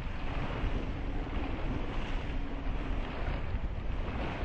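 Wind buffeting the microphone over the steady rush of sea water aboard a sailing yacht, a continuous noisy rumble that is strongest in the low end.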